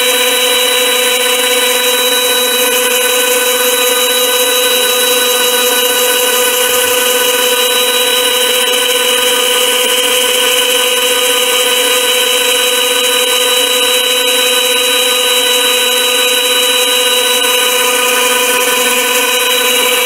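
Chinese variable-speed mini lathe running at steady speed, its motor and headstock gears giving a constant high whine, while a boring bar takes a tiny finishing pass inside a brass part.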